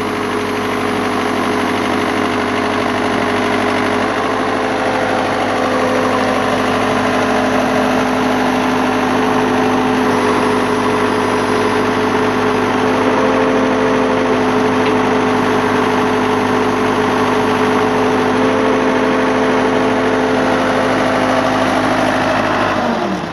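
Case 580D backhoe's engine running steadily at raised throttle, then dropping in pitch near the end as it slows down.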